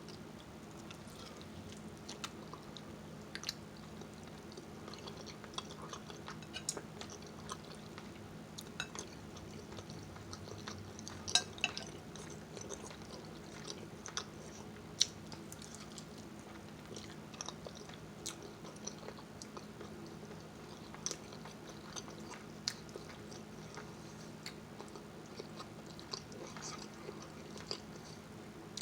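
Close-miked chewing and mouth noises of a person eating, with many small irregular clicks and smacks over a steady low hum.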